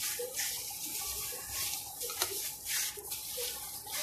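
A hand in a plastic glove squeezing and mashing a moist mixture of shredded chicken and boiled potato on a plate: soft, wet squelching strokes, repeated irregularly.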